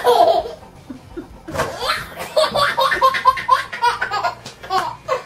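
Toddler's belly laughter: a burst at the start, then a long run of short, high-pitched laughs, with a few sharp taps among them.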